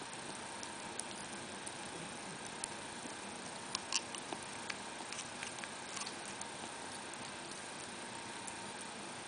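A ferret licking and lapping thinned food from a feeding syringe: small wet clicks and smacks, scattered through, with the strongest cluster about four seconds in.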